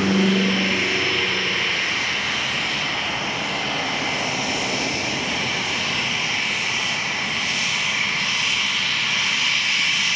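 Fixed-wing aircraft engine running steadily, a continuous engine noise with a strong high hiss.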